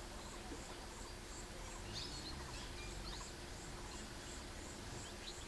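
Forest ambience: an insect pulsing steadily high up, about two or three beats a second, with a few short bird chirps about two seconds in and again near the end.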